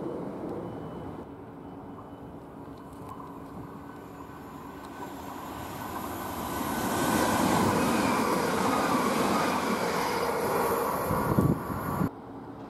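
Electric multiple-unit passenger train approaching along the platform. Its noise builds to a peak, with a whine that falls slowly in pitch, then cuts off suddenly near the end.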